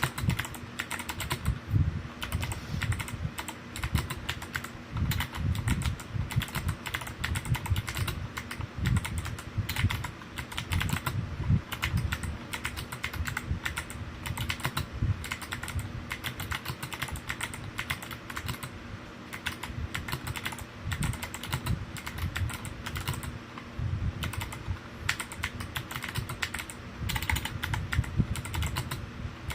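Continuous fast typing on a stock DROP CTRL high-profile mechanical keyboard with Kailh Box Jade clicky switches and PBT keycaps: a dense stream of sharp clicks, each keystroke with a deeper thump beneath it.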